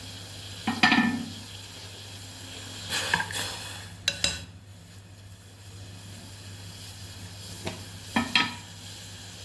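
Pan of water with ginger, garlic and green tea simmering on a stove, a steady low hiss, with several short clinks and scrapes of a spoon against the pan; the loudest comes about a second in.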